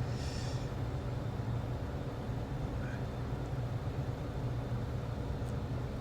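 Shop heater running with a steady low hum. A brief high-pitched metallic ring comes just after the start, as bolts are fitted into the tractor's steering gear housing.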